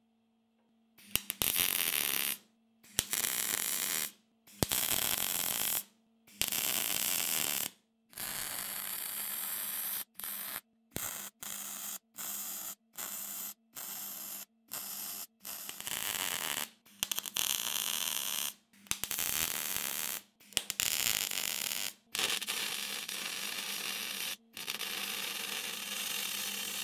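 MIG welder crackling as it welds a 3mm steel repair plate onto a Land Rover chassis. It comes in a run of short welds, each one to two seconds long, stopping and starting with brief pauses between, and a faint steady hum runs underneath.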